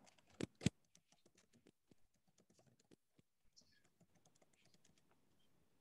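Faint typing on a computer keyboard, irregular key clicks, with two louder clacks about half a second in.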